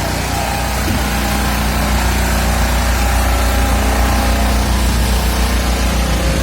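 An engine running steadily at idle, with a low, even hum.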